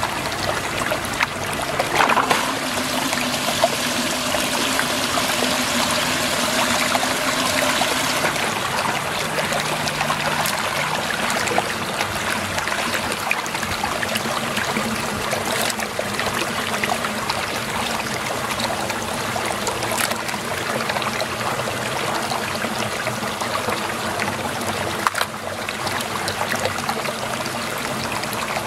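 Water swirling and gurgling steadily down a whirlpool hole, with a few sharp clicks now and then.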